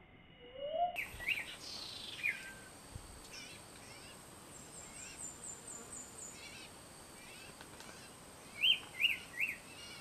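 Common ioras (sirtu) calling at a trap cage: sharp chirps about a second in, a quick run of about eight high, falling notes in the middle, and three loud chirps near the end.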